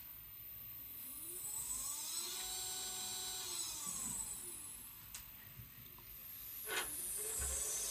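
Sky-Watcher EQM35 Pro equatorial mount's motors slewing: a whine that glides up and then back down in pitch twice, as the drive speeds up and slows down, with a brief sharper noise near the end. The owner calls this slew sound strange.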